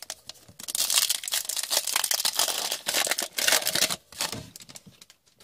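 Foil wrapper of an Upper Deck Synergy hockey card pack being torn open and crinkled by hand: a dense crackling that starts about half a second in, lasts some three and a half seconds, then thins to a few crinkles and dies away near the end.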